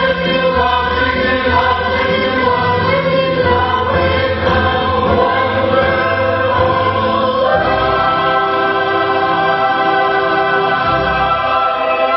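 A choir singing in harmony with sustained chords. About halfway through it moves to a new chord and holds it steady.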